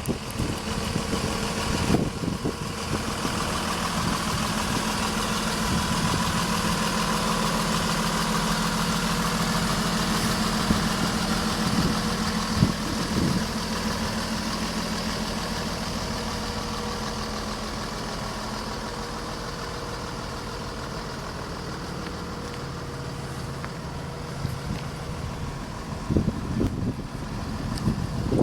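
Blue Bird transit bus's 5.9-litre Cummins ISB turbo diesel idling steadily, growing somewhat louder over the first several seconds and then easing off; a few short knocks near the end.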